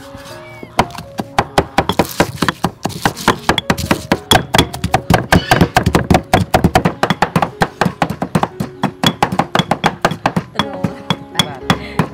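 Knife chopping on a cutting board in quick, uneven strokes, several a second, over background music.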